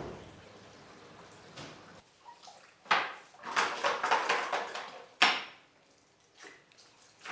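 Kitchen handling sounds: a knock, a few seconds of rustling or splashing noise full of small clicks, then a sharp clatter about five seconds in, followed by a few lighter knocks.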